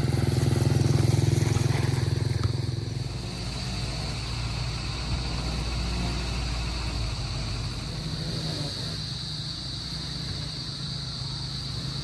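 Small step-through motorcycle passing by with its engine running, loudest about a second in and fading away by about three seconds in.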